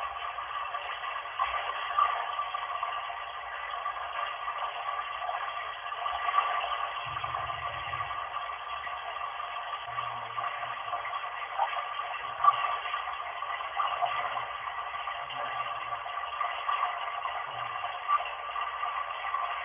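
Running bath water played back from a video through a small speaker and picked up by a Nokia phone: a steady, thin hiss of water with a few brief louder spikes.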